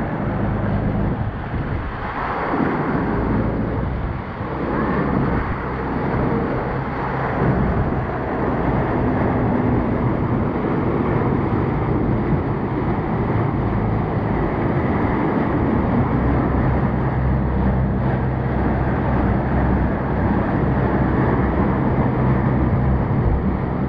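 Motorboat running at speed: a steady engine drone under the rush of churning wake water.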